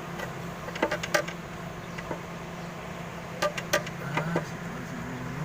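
A few sharp metallic clicks and clinks in two short clusters, about a second in and again about three and a half seconds in, over a steady low hum.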